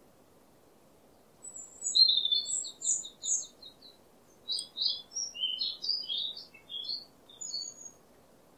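A songbird singing: a run of quick, high chirps and short trills that starts about a second and a half in and stops shortly before the end, over a faint steady hiss.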